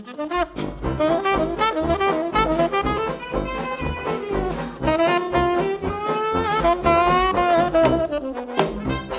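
Jazz big band in 1920s–30s dance-band style playing a boogie-woogie number, with a saxophone solo over the band's brass and rhythm section. The solo line slides downward near the end.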